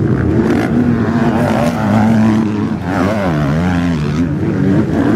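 Motocross bike engines revving hard, their pitch climbing and dropping again and again as the bikes throttle up and back off over the track's jumps; more than one engine is heard at once.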